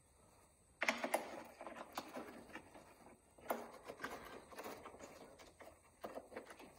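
Very quiet for about the first second, then rustling and scattered light clicks and knocks of handling, in two or three stretches.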